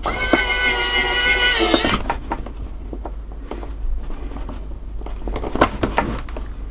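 Xiaomi Mijia electric precision screwdriver's motor and metal gearbox whirring for about two seconds, shifting pitch just before it stops. It is followed by scattered small clicks and taps of handling.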